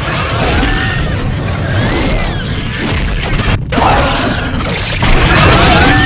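Mothra-style giant monster cries from edited creature sound effects: high, wavering screeches that rise and fall over a heavy rumble with crashing noise. The sound cuts out briefly partway through and is louder near the end.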